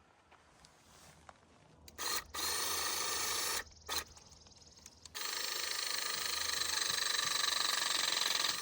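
Battery-powered Gator electric hydraulic crimper running as it compresses an aluminum barrel splice onto a service-cable conductor: a short run about two seconds in, a brief blip, then a longer run from about five seconds that grows slightly louder and cuts off suddenly near the end as the tool reaches full crimping pressure and releases.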